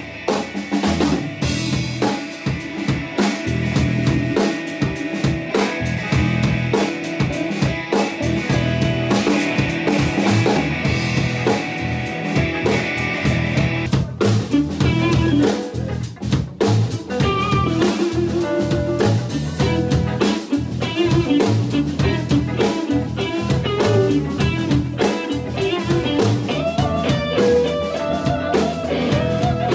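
Live instrumental rock band playing: electric guitars, electric bass and a drum kit. About halfway through, the held chords give way to a busier part with a moving melody line over the drums.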